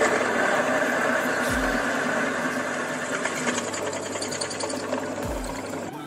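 Drill press running steadily as its twist bit bores through a steel plate.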